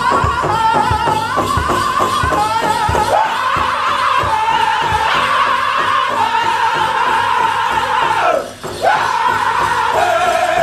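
Powwow drum group singing a chicken dance song in high-pitched voices, over a steady beat that several drummers strike together on a large shared hand drum. The singing breaks off briefly about eight and a half seconds in, then comes back at a lower pitch.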